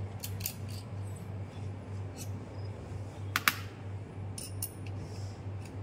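Light metallic clicks and clinks of small steel bolts and parts handled on an aluminium chequer-plate workbench, with a sharp double clink about three and a half seconds in. A low hum pulsing about four times a second runs underneath.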